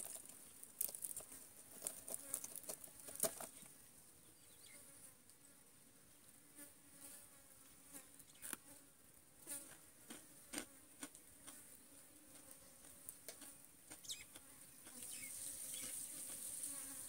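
Faint, steady high-pitched insect buzzing that grows louder in the last couple of seconds. Scattered crisp clicks of chewing on over-fried, crunchy dried fish run through it.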